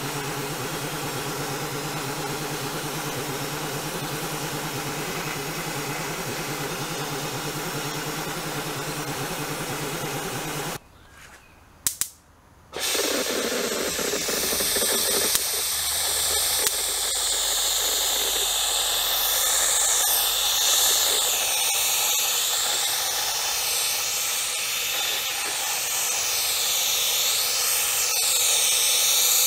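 A motor runs steadily at an even pitch, then cuts off about eleven seconds in. After a short near-silent gap, a paint spray hisses steadily while a coat goes onto a metal engine shroud. The hiss wavers in tone as the spray moves.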